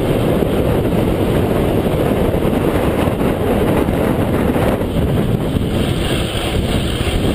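Wind rushing over the microphone of a bicycle-mounted camera on a fast downhill run: a loud, steady, rumbling buffet with no let-up.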